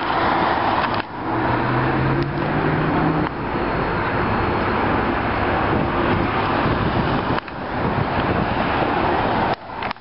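Loud, steady engine noise of helicopters overhead mixed with city traffic, broken by several abrupt cuts.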